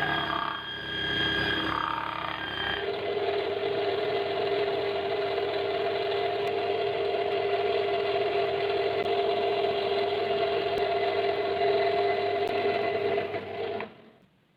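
Electric power tool running steadily with an even hum, a different clip with shorter tones in the first few seconds, and it cuts off suddenly near the end.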